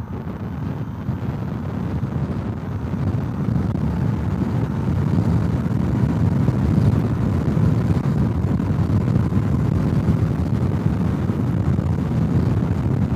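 Wind noise buffeting a helmet-mounted camera's microphone at riding speed on an electric scooter, a dull rumble that grows louder over the first few seconds and then holds steady.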